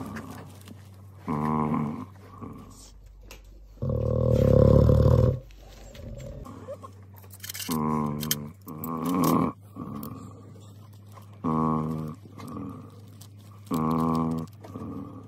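An anaesthetised male lion snoring in a regular rhythm: a short pitched snore every couple of seconds, with one longer, louder, deeper one about four seconds in. Under the anaesthetic, his snoring is taken as the sign that all is well.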